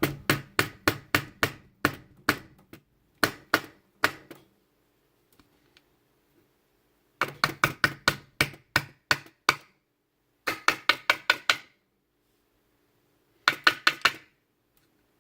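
Padlock being knocked against a hard surface in quick runs of sharp taps, about four or five a second, to shake the pins and springs out of the disassembled lock. There are several runs with short pauses between them.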